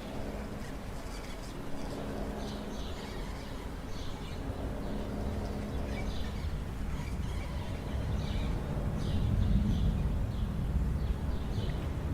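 Birds chirping over a low rumble of thunder and wind; the rumble swells louder about three quarters of the way in.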